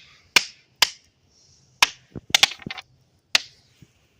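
Sharp clicks and taps close to the microphone, about eight of them at irregular spacing with a quick run of several a little past two seconds in, like fingers handling and tapping the recording phone.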